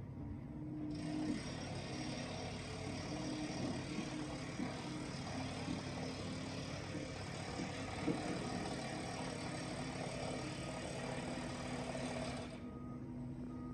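Engine of heavy street-construction machinery running steadily, with a broad hiss over it that stops shortly before the end and a few knocks and clunks, the loudest about two thirds of the way through.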